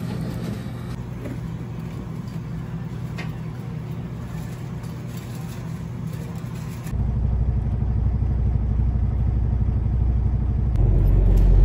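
A steady low hum, then about seven seconds in a louder, deeper rumble takes over: a semi truck's diesel engine running, heard from inside the cab.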